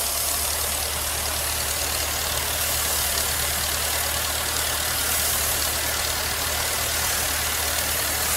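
Engine of a rice threshing machine running steadily: a constant low hum with an even hiss above it.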